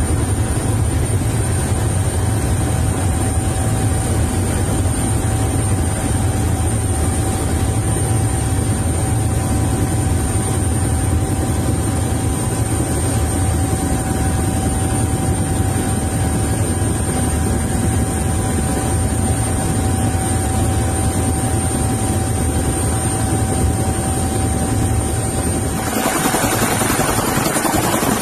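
Military helicopter heard from inside the cockpit in flight: a steady engine and rotor drone with constant high whines. Near the end the low rumble falls away and a brighter hiss takes over.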